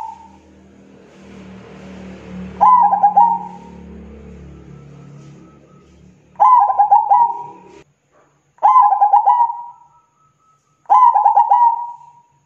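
Zebra dove (perkutut) cooing: four phrases a few seconds apart, each a quick run of short, stuttering coo notes lasting about a second. The tail of an earlier phrase is heard at the very start.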